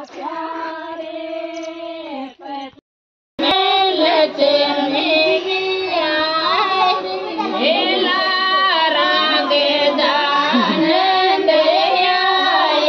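A woman singing a song in long held notes with ornamented turns. It cuts out completely for about half a second near the three-second mark, then carries on louder.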